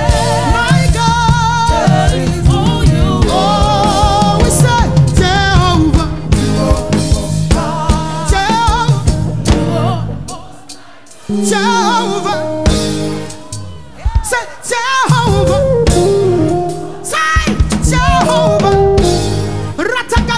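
Live gospel praise music: a woman singing lead over a drum kit and band. About ten seconds in the drums and bass drop away, leaving the voice with light backing for several seconds, and the full band comes back in near the end.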